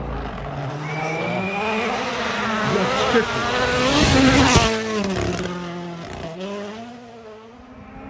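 Turbocharged four-cylinder rally car passing flat out: the engine note climbs as it approaches, is loudest about four and a half seconds in, then drops in pitch and revs up again through the gears as it fades away.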